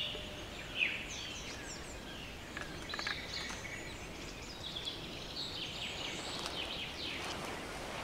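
Several small songbirds twittering in a forest: short, high chirps and trills overlapping one another throughout, over a steady low rush.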